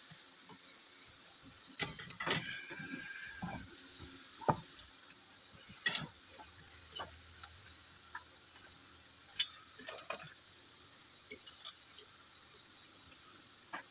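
Scattered light clicks and small metallic clinks from handling a soldering iron, copper wire and components on a circuit board. One clink about two seconds in rings briefly.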